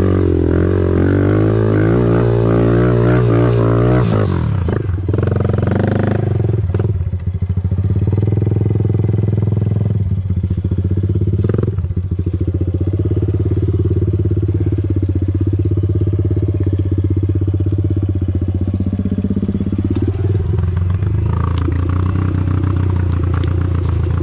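A 110cc four-stroke single-cylinder pit bike engine revving hard. The revs hold high for the first few seconds, then drop sharply, and afterwards rise and fall with the throttle, with a few knocks and clatters in between.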